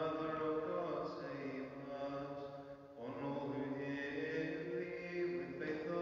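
Orthodox liturgical chant: a voice singing a slow, drawn-out melodic line, pausing briefly about three seconds in.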